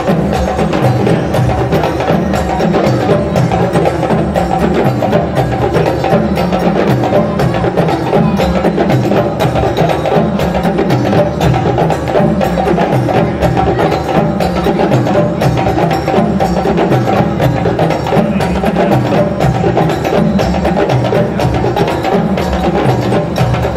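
Ensemble of djembe hand drums playing a dense, continuous West African rhythm.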